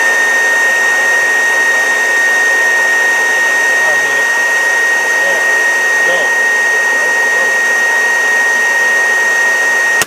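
An Oreck bagged upright vacuum cleaner's motor running at full speed: a steady high whine over a rushing hiss of air. It cuts off right at the end as the switch is knocked off.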